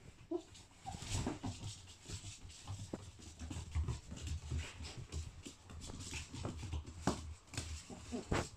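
Four-and-a-half-week-old puppies giving a few short whimpers, near the start and again near the end, amid many light clicks and taps of their paws and claws on a wooden floor as they scamper and play.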